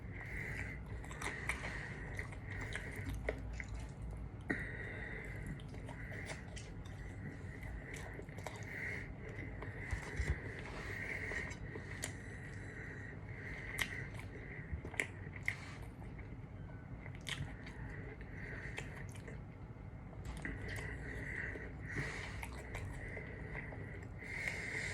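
Close-miked chewing and biting of a KFC meal, with scattered short clicks and crunches.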